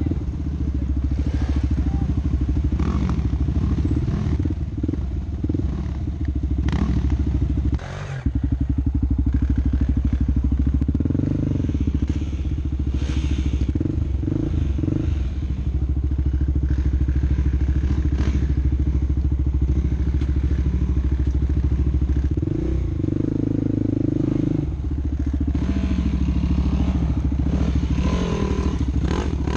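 Off-road vehicle engine running under load with a steady low rumble, revving harder twice, about a third of the way in and again near the end, with scattered knocks and clatter from the vehicle working over rough ground.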